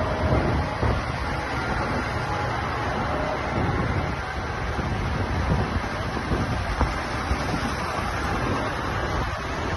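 Diesel tractor engines running as a line of tractors drives past, with wind noise on the microphone.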